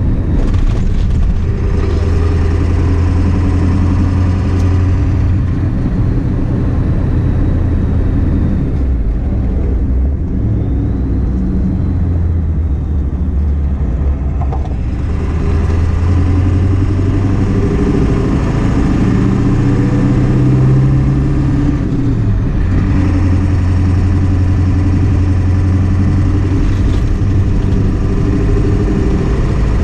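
1997 Ford F-350 pickup engine running while the truck is driven, its pitch rising and falling with speed; about two-thirds of the way through it climbs, then drops sharply.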